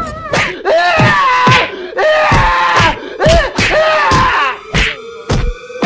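A voice crying out in several loud, drawn-out groans, each falling in pitch. Near the end a slowly rising tone sets in, with a few heavy thuds.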